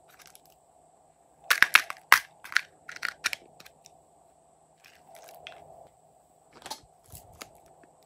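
Hard plastic owl-shaped containers being handled, with a quick run of sharp clicks and clacks about a second and a half in and a couple more later, over a faint steady hum.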